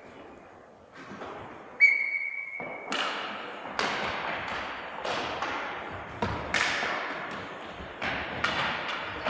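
A referee's whistle gives one short, steady blast about two seconds in. Then comes a run of sharp clacks, roughly one or two a second, as hockey sticks strike the ball on a wooden hall floor, each clack echoing in the hall.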